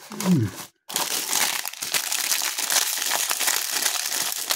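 Shiny foil ice-cream lolly wrappers crinkling and rustling steadily in the hand, with many small crackles. They start after a brief break about a second in. Just before, a short falling hum from a man's voice is the loudest sound.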